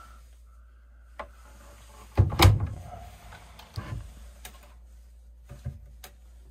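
Small wooden cupboard doors being opened and shut by hand: a few light knocks and clicks, with one heavier clunk a little over two seconds in.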